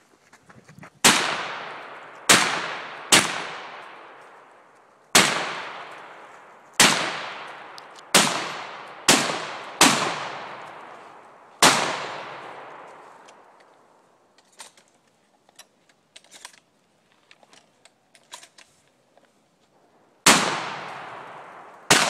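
Pistol shots: nine sharp reports in the first twelve seconds, roughly a second apart, each trailing off in a long echo. A pause with faint clicks follows, then two more gunshots near the end.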